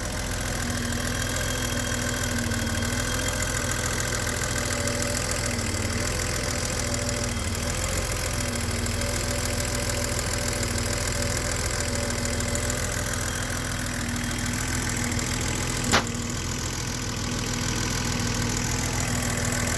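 BMW 735iL's M30 straight-six idling unevenly, the idle speed wavering with occasional stumbles much like a misfire, which the owner later traced to wrongly gapped spark plugs. A single sharp click sounds near the end.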